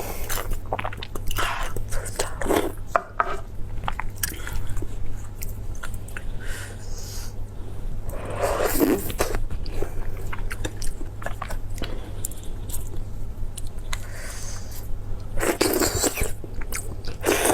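Close-miked chewing and biting of soft, fatty food, heard as clusters of short smacking mouth sounds, with a steady low hum underneath.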